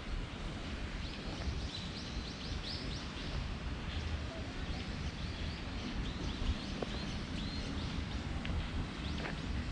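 Small birds chirping again and again: short high notes that each drop in pitch, sometimes several in quick succession, over a steady low rumble.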